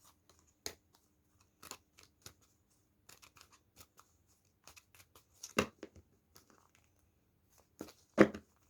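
Tarot cards being handled: scattered sharp clicks and snaps of the cards, the loudest about halfway through and again near the end.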